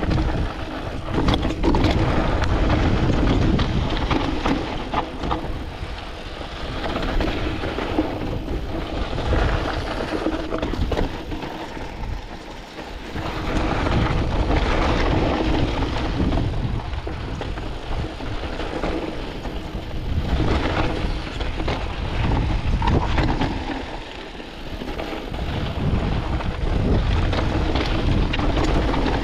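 Canyon Spectral AL 6.0 full-suspension mountain bike riding down a rocky, dusty trail: wind rushing over the chest-mounted camera's microphone, tyres crunching over loose stones and the bike rattling. It swells and eases every few seconds with speed and terrain.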